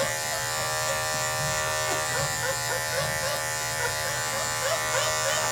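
Electric dog grooming clippers running with a steady buzz while trimming the dog. From about two seconds in, a run of short, squeaky chirps, two or three a second, sounds over the buzz.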